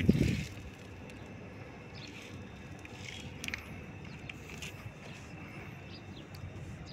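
A brief low thump at the start, then steady outdoor background noise, likely distant traffic, with a few faint short chirps.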